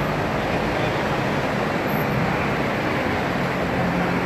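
Steady traffic noise on a city street, an even rumble and hiss with no distinct events.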